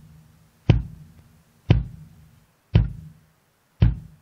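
Looped recording of a kick drum through the Presonus ACP88 compressor/gate: four kick hits about a second apart, each followed by a low ringing tail. Near the end the tail is cut short between hits, as the gate threshold is raised to open on the beater hit and shut the drum off in between.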